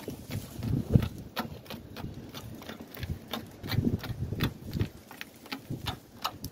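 Plastic vapor barrier being peeled off a car door's inner panel, pulling away from its sticky black adhesive bead with irregular crackling clicks and some low bumps and rustling of the sheet.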